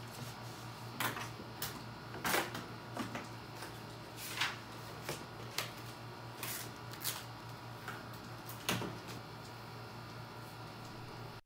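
Sheets of paper rustling as they are handled and lifted, with scattered light clicks and knocks over a faint steady hum.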